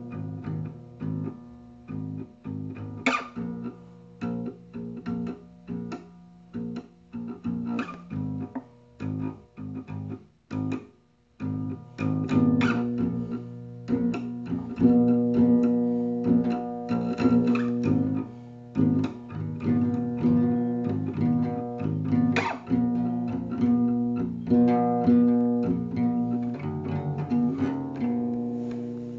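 Background music: a plucked guitar playing single notes that ring and fade, sparse at first and fuller and louder from about twelve seconds in.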